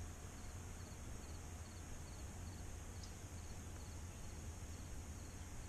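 Quiet swamp ambience: a steady low rumble and hiss with faint insect chirping repeating at an even pace.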